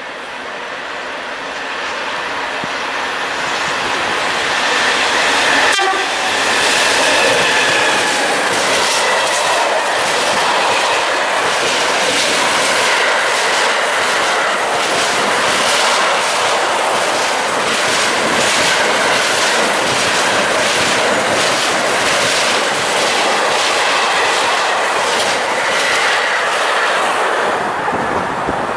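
A BB 27000 electric locomotive and its combined-transport freight train of container and tank-container wagons passing close by. The noise builds over the first few seconds, then the wagons roll past with a steady rhythm of wheel clicks over the rail joints.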